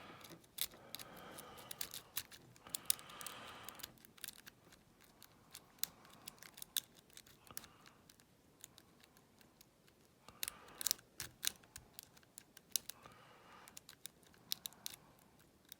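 Lock pick and tension tool working the pins inside a five-pin euro cylinder lock: scattered light metallic clicks and scrapes, with a few quick runs of clicks in the second half.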